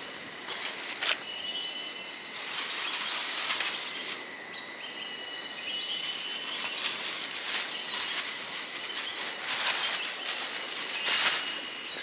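Outdoor natural ambience: a steady high insect drone throughout, with a few short high chirps and several brief rustling noises scattered through it.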